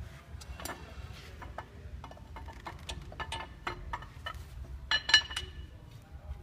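Steel hydraulic roller camshaft being slid and turned through the cam bearings of a bare Holden 304 V8 block: irregular metallic clicks and light clinks. A brief cluster of sharper, ringing clinks comes about five seconds in.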